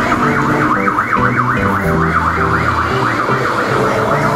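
Background music: a fast, siren-like warble repeating about four times a second over shifting low notes.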